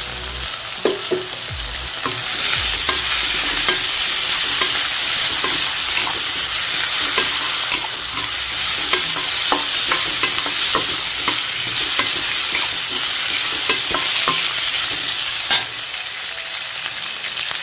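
Sliced bell peppers and onions sizzling in hot oil in a stainless steel kadai, stirred with a steel spoon that scrapes and clicks against the pan. The sizzle grows louder about two seconds in and drops after a sharp clink near the end.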